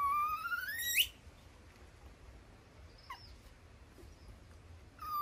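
Baby monkey crying: one drawn-out call lasting about a second that rises in pitch and sweeps sharply up at its end, then a short faint chirp about three seconds in and another brief call near the end.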